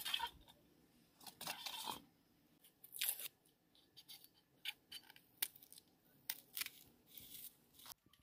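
Kitchen knife peeling the dry papery skin off an onion: irregular crisp rasps, snips and tearing sounds, one longer scrape about a second and a half in.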